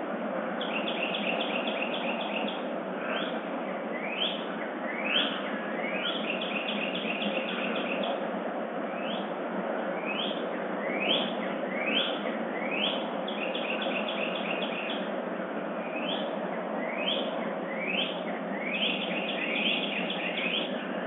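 Dawn chorus of songbirds: repeated short rising notes and quick runs of short notes from several birds, over a steady background hiss.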